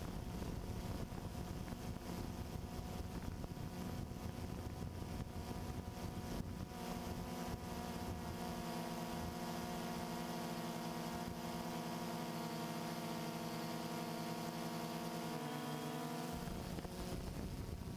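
A steady rushing noise, joined about seven seconds in by a motor's steady hum that dips in pitch near the end and then cuts off.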